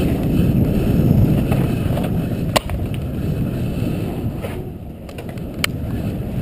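Low rolling rumble of a bicycle riding over pavement, with wind buffeting the microphone. Two sharp clicks, one about two and a half seconds in and another a few seconds later.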